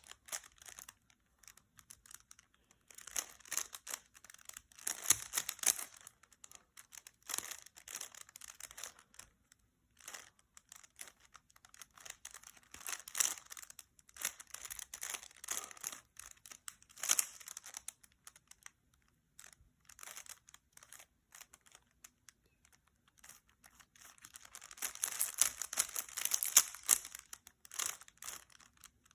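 Plastic Rubik's Cube being turned fast by hand during a solve: its layers click and clack in quick flurries of turns, broken by short pauses.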